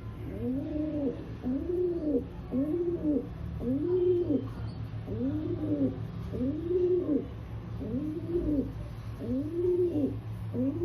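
Rock pigeon cooing: a steady series of soft coos, each rising then falling in pitch, a little over one a second, over a steady low hum.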